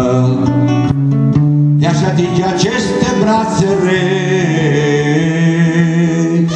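Live folk song played through a PA: two acoustic guitars with a man singing.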